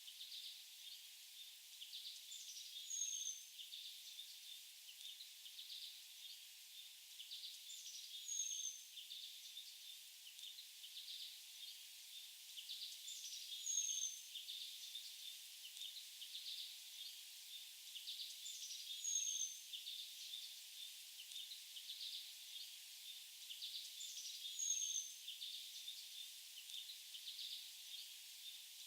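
Faint songbirds: a short, high, down-slurred whistle about every five seconds among scattered chirps, over a steady high trill.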